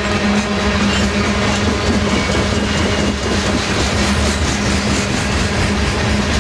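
A loaded freight train of grain hopper cars rolling past, steel wheels running on the rails with a steady rumble, light clicking of wheels over the rail and a steady low hum.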